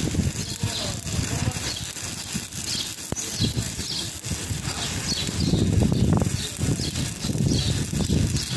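Stick (arc) welding: the electrode arc crackling and sputtering continuously, getting louder about two-thirds of the way in.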